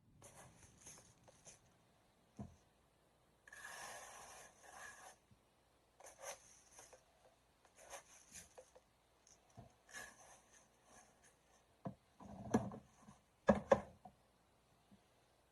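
Objects being handled: intermittent rubbing and scraping in short bursts, with a few louder knocks near the end.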